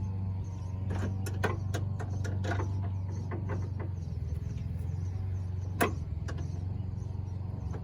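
Hand tools clicking and clinking against metal parts under a truck's hood, with one sharper knock about six seconds in, over a steady low hum.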